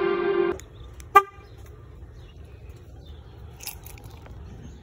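Car horn: the tail of a long honk cuts off about half a second in, then one short toot about a second later, over a low steady rumble.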